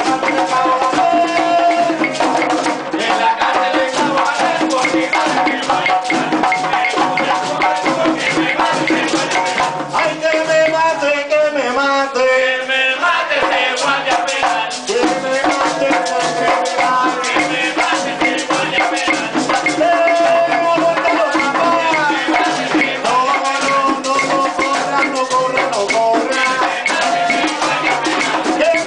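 Live Puerto Rican plena: several panderetas (hand-held frame drums) beaten in interlocking rhythm, with a güiro scraping and a jingle tambourine, under group singing.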